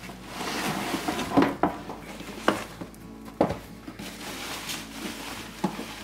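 Plastic packaging bag rustling and the cardboard box scraping as a coffee maker is lifted out of it, with several sharp knocks of its plastic housing against the box.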